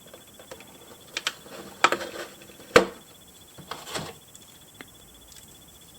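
A few light clicks and knocks from small plastic toy pieces and their packaging being handled, the sharpest about three seconds in.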